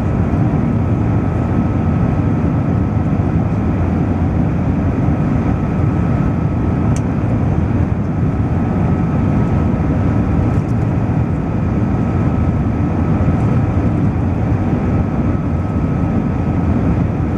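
Airbus A380 jet airliner noise: a steady, loud rush of engine and airflow sound with a thin constant whine above it, and one faint click about seven seconds in.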